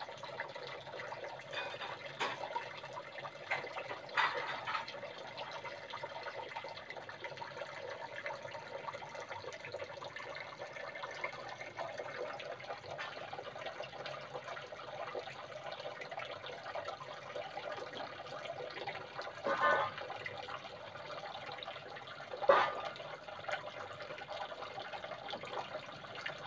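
Steady trickle and splash of water running into a shallow fish pond, with a few brief louder splashes or knocks, the sharpest near the end.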